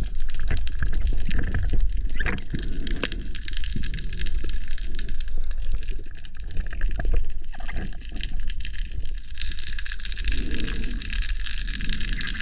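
Underwater camera sound: muffled water moving and gurgling, with a heavy low rumble and scattered small clicks.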